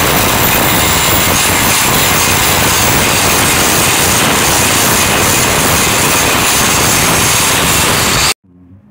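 Bosch angle grinder running under load, its abrasive disc grinding truck leaf-spring steel in a steady, loud, high-pitched grind. It cuts off abruptly near the end.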